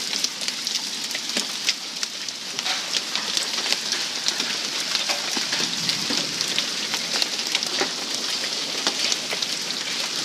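Golf-ball-sized hail coming down with heavy rain: a dense, steady hiss of rain with many sharp, irregular hailstone impacts.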